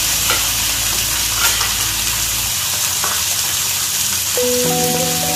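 Beef roast searing in hot oil in a frying pan: a steady sizzle. Background music with sustained notes comes in near the end.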